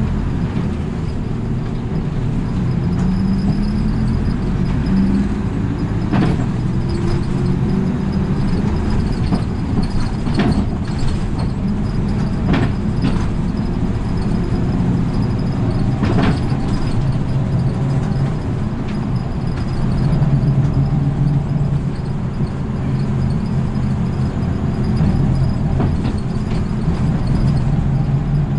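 Engine and running noise of a city route bus heard from inside the cabin. The engine note rises as the bus pulls away in the first few seconds, then runs steadily at cruising speed. A few sharp rattles or clicks from the cabin fittings come through in the middle.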